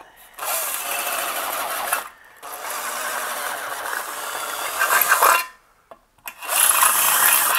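Electric drill running, its bit grinding sideways against the edge of a hole in a powder-coated metal chassis as it is rocked to elongate the hole into a slight oval. Three rasping bursts of a few seconds each, with short pauses between.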